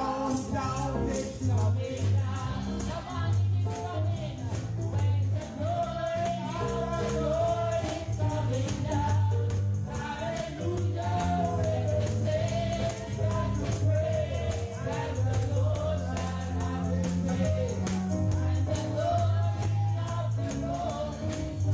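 Gospel worship music: voices singing over a steady bass line, with a tambourine shaken in rhythm.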